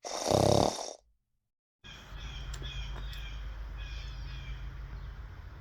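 A single loud bird call lasting under a second. After a short silent break, small birds chirp repeatedly over a steady low hum.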